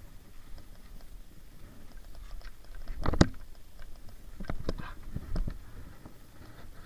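A few short knocks and clicks of handling: one sharp knock about three seconds in, then a quick run of smaller clicks a second or two later.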